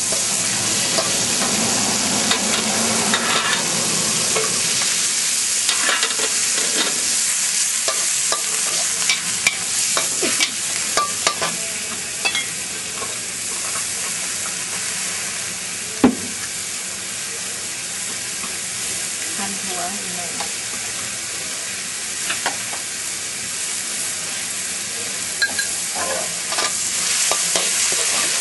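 Stir-frying in a wok: a steady sizzle of food frying in hot oil, broken by frequent short clinks and scrapes of a utensil against the pan, with one sharp clank about halfway through.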